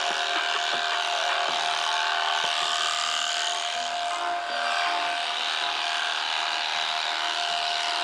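Electric sheep-shearing handpiece running steadily, its comb and cutter buzzing as they cut through thick, matted wool.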